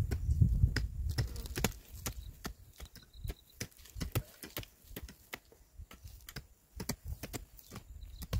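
Small hand hoes chopping into dry hillside soil to dig planting holes: a quick, irregular series of sharp strikes, several a second.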